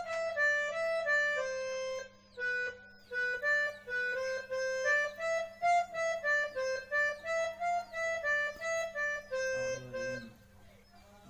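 Casio portable electronic keyboard playing a melody one note at a time, with a short break about two seconds in, stopping about ten seconds in. A faint steady low hum runs underneath.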